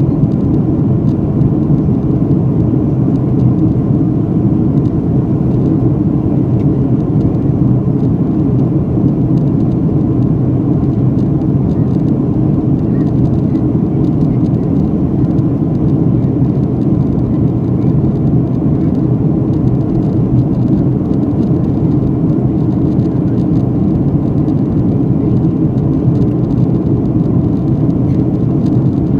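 Steady low roar of an airliner cabin in flight: engine and airflow noise, unchanging throughout.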